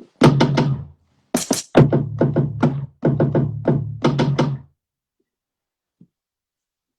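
A few seconds of music: a fast run of drum hits over a low bass tone, cutting off suddenly about two-thirds of the way in.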